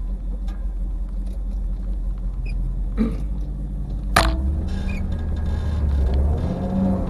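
Low steady rumble of a Ford Mustang's engine and tyres on a snowy road, heard from inside the cabin. Two short knocks come about three and four seconds in.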